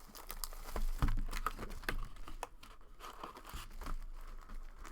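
Trading card packaging being torn open and crinkled, with sharp crackles and clicks and a light thump about a second in.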